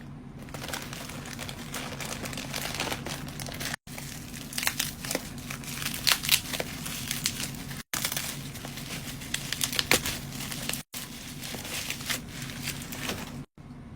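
Packaging of an Anker charger being handled and opened: irregular crinkling and rustling with sharper crackles, loudest a little past the middle, over a faint steady low hum. The sound drops out briefly about four times.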